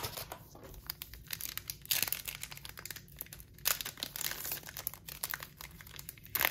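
Foil wrapper of a 2022 Topps Stadium Club baseball card pack being torn open and crinkled by hand, an irregular crackling with louder clusters of crackle now and then.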